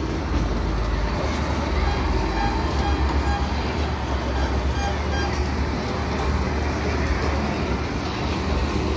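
Spinning motorcycle carnival ride running: a steady deep rumble with a rushing noise over it.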